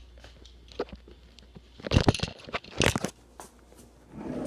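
Crunching, crackling handling noises, with two loud crunches about two and three seconds in.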